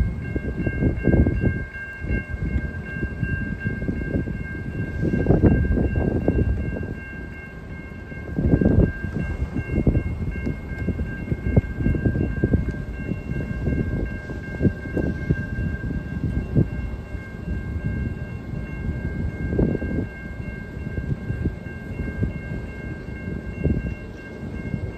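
CN freight cars rolling slowly through a grade crossing, the wheels clattering and thumping over the rails. A steady high ringing from the crossing-signal bell sounds over it.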